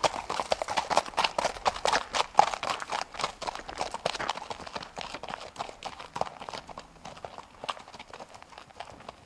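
Hoofbeats of two horses, a ridden Missouri Fox Trotter filly and a led horse, on hard-packed ground: a quick, uneven clip-clop that fades over the last few seconds.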